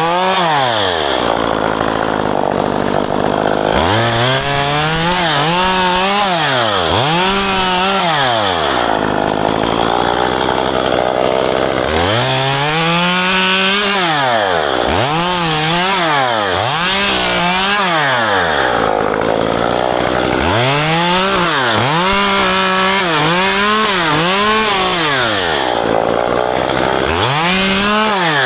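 Gas two-stroke chainsaw revved up and down over and over in short bursts of about a second each, with brief drops back toward idle between them, as it cuts branches during ficus pruning.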